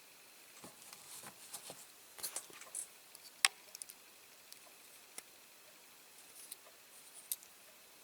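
Scattered small clicks and scrapes of pliers gripping and bending a diecast toy's bowed wheel axles to straighten them, with one sharper click about three and a half seconds in.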